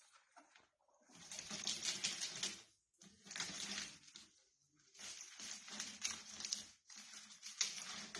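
Ferrets at play: bursts of scrabbling paws on a rug and rustling of a fabric play tunnel, each lasting a second or two with short pauses between.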